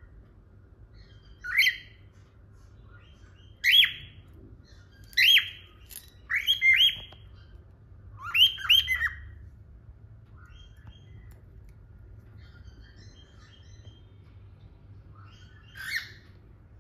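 Cockatiels calling: short, loud calls that drop in pitch, singly and in quick bursts of two or three over the first nine seconds, then one more near the end, with soft chirps in between.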